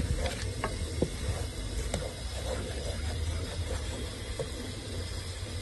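Wooden spoon stirring small dried silver fish (mukene) and chopped peppers in an aluminium pot, with a few short scrapes and knocks of the spoon against the pot over a steady low rumble and hiss.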